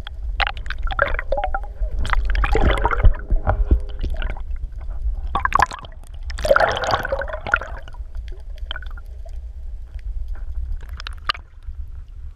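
Underwater gurgling and sloshing as a camera is held below the water surface, with irregular bursts of bubbling water against the housing over a constant low rumble.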